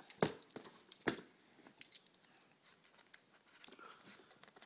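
Cardboard shipping box being cut open with a thin-bladed box cutter and handled: two short sharp cutting or scraping sounds about a quarter second and a second in, then faint scattered rustling and ticking of the cardboard.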